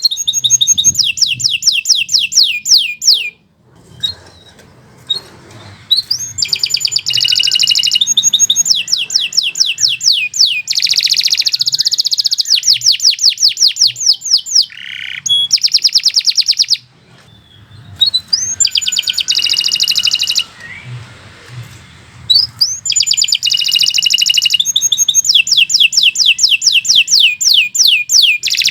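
Domestic canary singing long, continuous trilling phrases of rapid repeated high notes, broken by a few short pauses.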